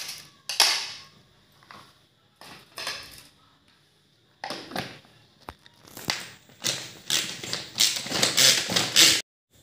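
Plastic pull-cord mini chopper. A few scattered plastic knocks and clicks come first as it is put together. From about six seconds in, the cord is pulled in quick strokes, about two a second, and the blades whir through tomato pieces in the plastic bowl until the sound cuts off suddenly near the end.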